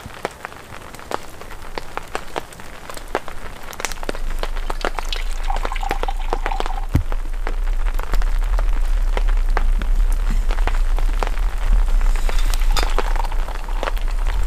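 Heavy rain drumming on a plastic tarp roof, full of sharp drop ticks, with a deep rumble building from about four seconds in as the rain grows louder.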